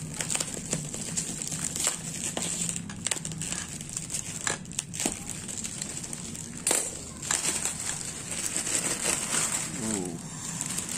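Bubble wrap being slit with a utility knife and pulled apart, crinkling and rustling with scattered crackles and clicks.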